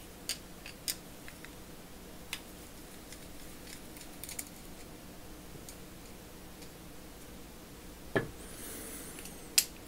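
Small metal clicks and taps of a screwdriver working the cover-plate screws out of a half-inch-drive ratchet head, and of screws being set down, scattered a second or more apart. The loudest is a knock about eight seconds in, followed by faint scraping and a sharp click near the end.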